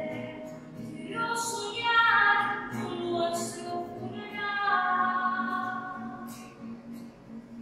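A woman singing a song in long held notes to a classical guitar accompaniment; the voice falls quieter near the end.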